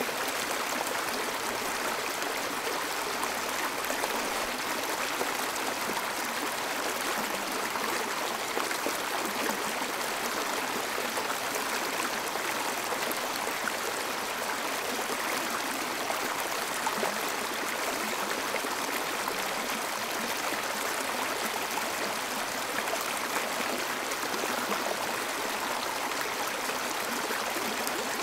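Steady flowing water, an even rushing sound that does not change.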